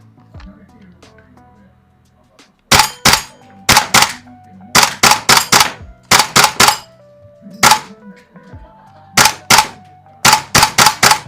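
Airsoft gun firing about twenty semi-automatic shots in quick irregular groups of two to five, starting a few seconds in, with sharp snaps echoing in a small room over background music.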